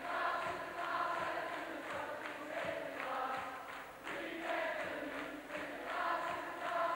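A large crowd of children and adults singing together in unison, in short repeated phrases about every two seconds.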